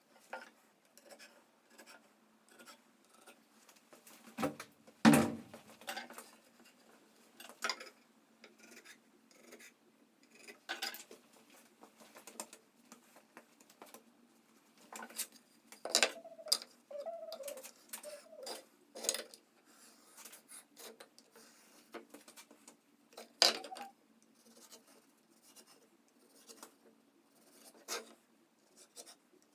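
Irregular knocks, clicks and scrapes of hand tools and pine pieces being handled and worked at a workbench. The two loudest knocks come about five seconds in and about twenty-three seconds in, with a brief squeak in between.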